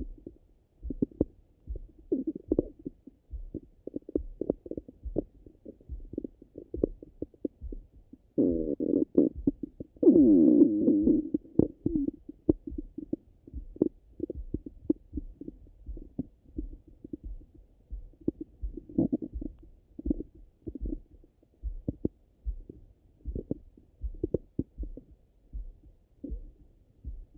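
Bowel sounds heard through a stethoscope pressed to the belly: frequent short pops and gurgles, with one louder, longer gurgling rumble that slides in pitch about eight seconds in and lasts some four seconds. This is a stomach actively digesting after a meal.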